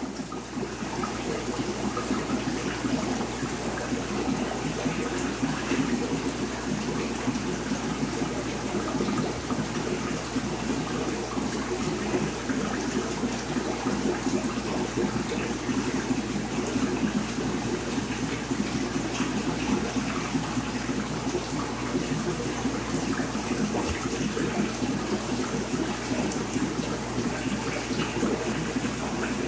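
Steady running, splashing water of an aquarium's circulation, with a low steady hum underneath.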